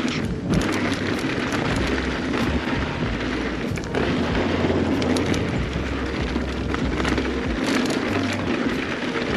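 Mountain bike descending a dirt trail: tyres rolling over rough ground with steady noise, and many sharp rattles and knocks from the bike, under a low rumble.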